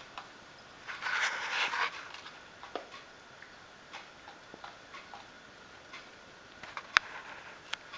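Two puppies gnawing on a chew bone: scattered sharp clicks of teeth on the chew, with a short noisy burst about a second in and one louder click near the end.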